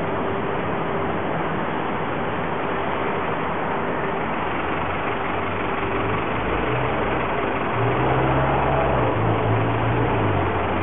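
City street traffic noise, with a heavy vehicle's engine running close by whose low hum comes in about halfway through and grows louder near the end.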